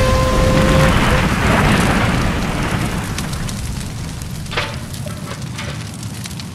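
Train collision sound effect: a steady whistle cuts off about a second in under a loud crash whose noise slowly fades. Crackling runs through it, with a sharp crack about four and a half seconds in.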